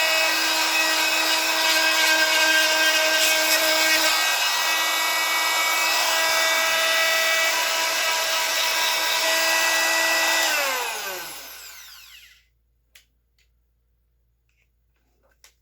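A power tool's electric motor running at a steady high speed with a whine. About ten seconds in it is switched off and the whine falls in pitch as it spins down to a stop, leaving a few faint clicks.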